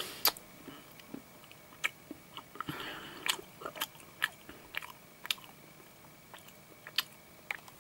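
A person chewing a piece of advent-calendar chocolate close to the microphone, with scattered small mouth clicks and crunches.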